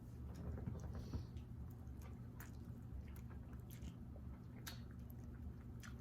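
A man chewing a mouthful of fake spaghetti noodles with fried egg: faint mouth smacks and small clicks scattered throughout, over a steady low hum.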